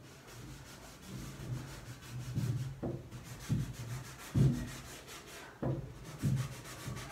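A cloth wiping chalk off a chalkboard, in uneven rubbing strokes that grow stronger from about two seconds in, over a steady low hum.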